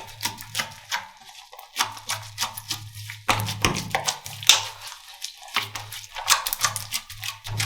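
Slime being squeezed and pressed by hands, giving dense, irregular crackling and popping clicks, with a low hum that comes and goes.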